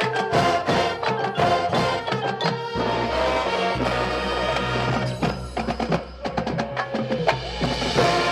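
Marching band playing: sustained band chords and a steady low bass under frequent sharp percussion hits, including wood-block-like clicks.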